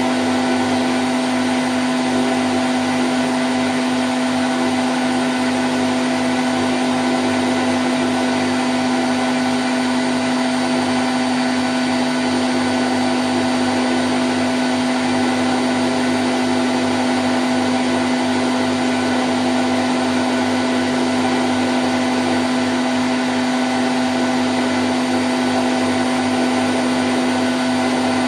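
Candy Grand O' F106 washing machine spinning at 1000 rpm: a steady, unchanging whirring hum with a strong single tone running through it.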